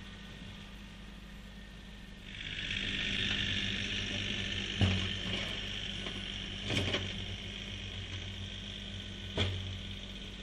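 Kioti CK3510 compact tractor working with a snow pusher in the lot, with a low steady hum and a steady high hiss that begins about two seconds in. Three sharp clunks come in the second half.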